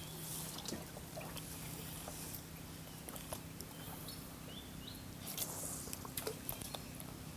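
Fishing rod and reel being worked on a cast: scattered clicks and brief swishes as a lure is cast toward the bank, with a few short bird chirps and a faint steady low hum underneath.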